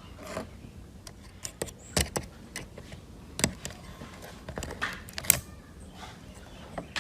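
Small tools and phone parts being handled during a phone repair: irregular sharp clicks and taps, the loudest a little past the middle.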